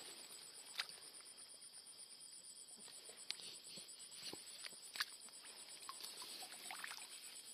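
Night insects trilling steadily and high, with a few faint clicks and rustles of wet grass and water as a hand reaches into the paddy to grab a speared fish.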